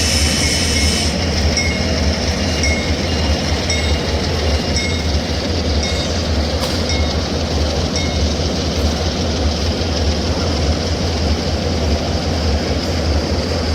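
Model train running on a show layout, with a steady low rumble throughout. A bell-like ringing repeats a little under twice a second during the first few seconds.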